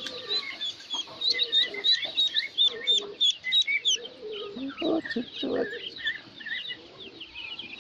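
Ducklings peeping continuously, many short high peeps overlapping in quick succession, with a couple of lower calls about five seconds in.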